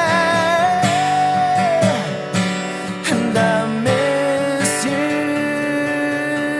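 A song with acoustic guitar; a singer holds a long wavering note for about the first two seconds, then the guitar plays on.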